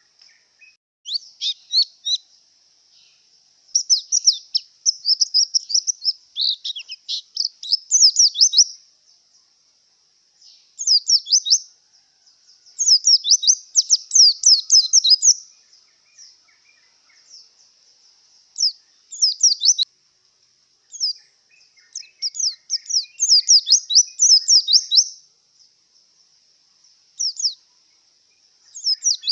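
White-eye (pleci) singing in breeding condition: quick, high, twittering phrases of rapid chirps, each lasting one to three seconds, with short pauses between them, over a faint steady hiss.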